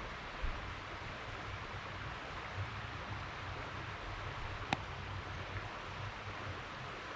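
River water rushing steadily, with a soft thump about half a second in and a single sharp click about two-thirds of the way through.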